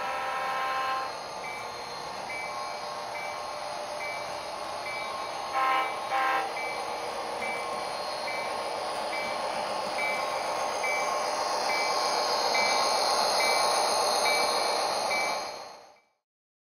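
Econami sound decoder in an HO-scale Athearn SD40-2 locomotive model: a horn blast ends about a second in, then the bell rings steadily about twice a second. Two short horn toots come about six seconds in, over running noise that swells as the train draws closer, and everything fades out near the end.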